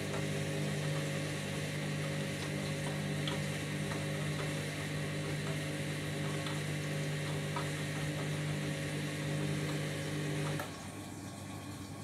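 Candy Grand'O Vita front-loading washing machine draining with its drum turning: a steady motor hum over sloshing water. The hum cuts off suddenly about ten and a half seconds in as the drum stops, leaving a quieter watery noise.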